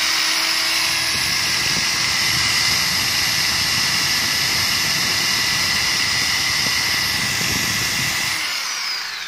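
NRT-PRO 450HD corded electric drill running unloaded at full speed: a steady, high whine from the motor and gearing. It winds down with a falling pitch near the end as the trigger is let go.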